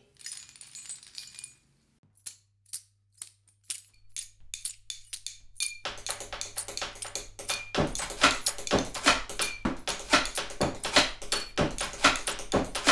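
Percussion played on household objects: keys jingle at the start, then sparse clicks and taps over a low steady hum. About six seconds in it builds into a dense layered groove of taps and clinks, with a heavy low beat joining at about eight seconds.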